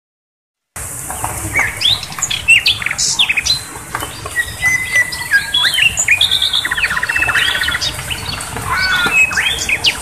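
Small songbirds chirping and trilling in varied short notes and quick sweeps, with a fast rattling trill about seven seconds in; the sound begins a moment after the start.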